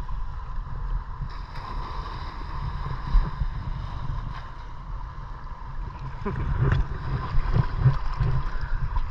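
Shallow sea water sloshing and lapping right around the microphone, with wind rumble on it; the sloshing gets louder and busier in the second half.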